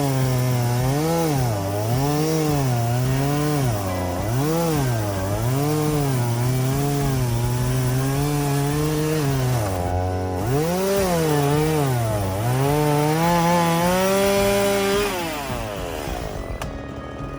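Chainsaw engine running at high revs while cutting, its pitch dipping and recovering about once a second as the chain loads up in the wood. Near the end the revs fall away as the throttle is let off.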